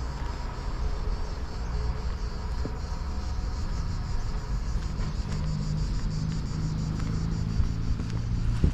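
Steady low rumble of outdoor background noise. In the second half a faint steady hum joins it, and a short knock comes near the end.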